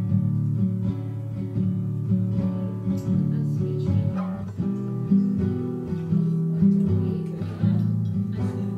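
Background music led by a plucked acoustic guitar, with notes changing in a steady rhythm.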